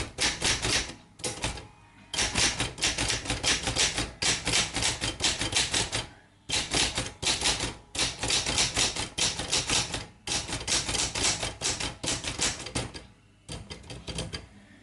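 Keys of a 1971 Olympia SM8 manual typewriter being typed in fast runs, with no ribbon fitted. It gives a rapid clatter of typebar strikes with brief pauses between runs, and the last run is fainter.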